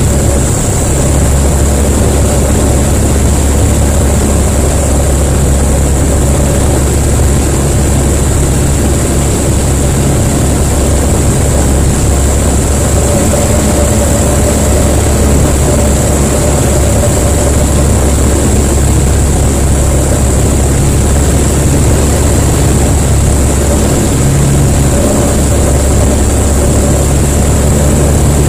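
Jabiru LSA-55 light aircraft's engine and propeller droning steadily, heard from inside the cockpit.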